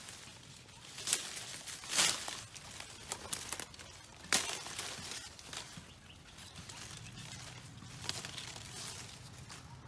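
Dry leaf litter and twigs crunching and rustling, with several sharp crackles spread through.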